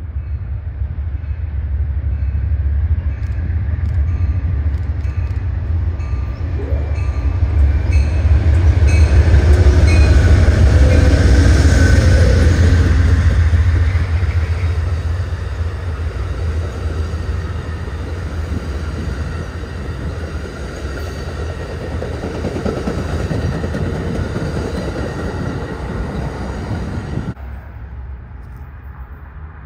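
Amtrak passenger train passing at speed, a diesel locomotive followed by double-deck Superliner cars. The deep rumble builds to its loudest about ten seconds in as the locomotive goes by, then carries on as the steady rumble and wheel noise of the cars rolling past. It cuts off suddenly near the end.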